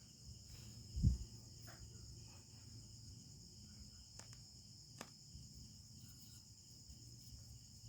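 Faint, steady high trill of crickets in the background, with a low hum, a soft thump about a second in and two light clicks later on.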